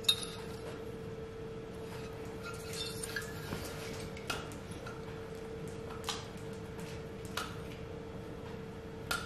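A steady faint hum with light, sharp clicks every second or two.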